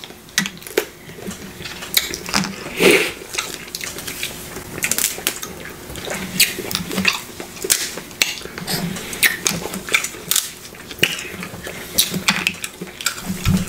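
Close-miked eating of crab legs: shells crackling and snapping as meat is pulled out, with wet chewing and mouth sounds, in irregular clicks.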